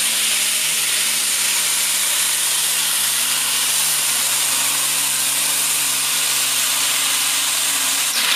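Modified pulling tractor's big multi-cylinder engine running flat out under load as it drags the weight sled: a loud, steady, hissing blare with a low drone beneath, holding on through the pull.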